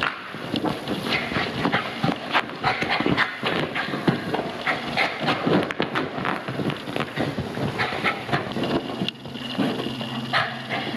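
Bichon Frise dog in a post-bath frenzy, digging and rubbing against sofa cushions: a dense, irregular scrabbling of paws and fur on upholstery fabric. A low pitched vocal sound from the dog comes in about nine seconds in.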